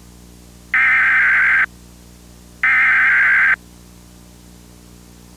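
Emergency Alert System digital header tones: two bursts of harsh, rapid data warble, each just under a second long and about a second apart. These are the last two of the three header bursts that open an EAS test. A steady low hum and tape hiss lie underneath.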